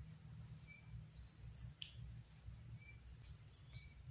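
Insects trilling in a steady high-pitched drone, with a low rumble underneath and a few faint short chirps.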